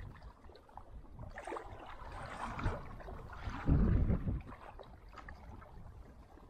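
Water splashing and lapping against a small boat's hull, with a hissing swell about a second in and a loud low rumble on the microphone about four seconds in.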